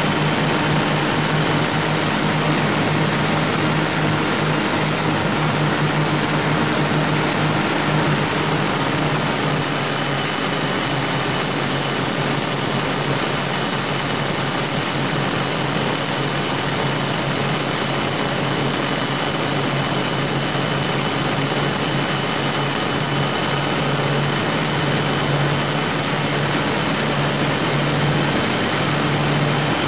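Twin Scania 12-litre six-cylinder diesels of a prototype high-speed boat running steadily under way: a loud, even drone and rush, with a constant low hum and a few steady high tones.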